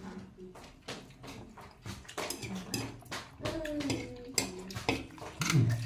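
Two people slurping and chewing instant noodles, with chopsticks clicking against a metal tray and a plastic bowl. Short vocal sounds from the mouth come in between, the loudest near the end.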